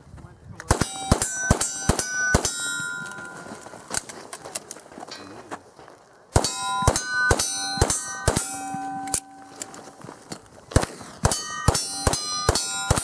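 Revolver fired in rapid strings at steel plate targets, each shot followed by a hit plate ringing with a clear metallic ping. Three strings: one starting about a second in, another about six seconds in, and a third near eleven seconds.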